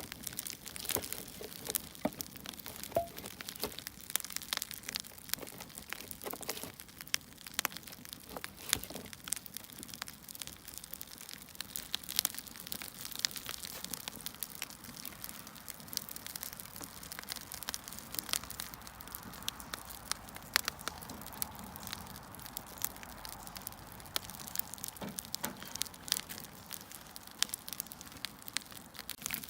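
Wood fire burning, with frequent irregular sharp crackles and pops over a soft steady hiss.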